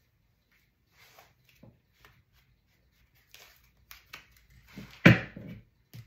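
Tarot cards being handled: soft rustles as cards are slid off the deck, then a louder slap about five seconds in as cards are laid down on the cloth-covered table.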